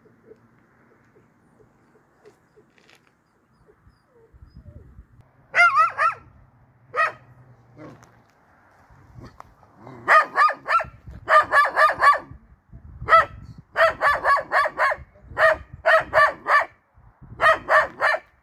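A dog barking in quick runs of four to six barks, the runs starting about ten seconds in, with a single longer call a few seconds before them.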